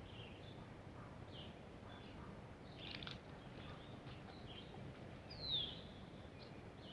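Small birds chirping in short, scattered high calls over a steady low background hiss; the loudest is a quick falling whistle about five and a half seconds in.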